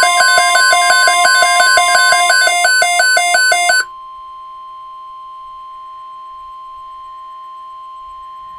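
NOAA Weather Radio's steady 1050 Hz warning alarm tone, the signal that turns on alert receivers before an emergency message is read. For about the first four seconds a loud, rapidly pulsing electronic alert beeping plays over it. The beeping then cuts off, leaving only the steady tone at a lower level.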